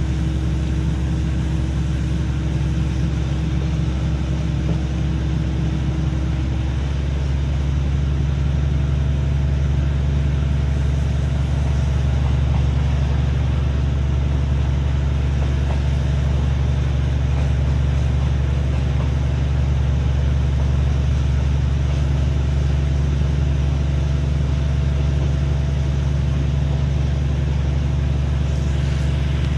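Steady low drone of a moving diesel train heard from inside the carriage, its engine note dropping slightly in pitch about seven seconds in.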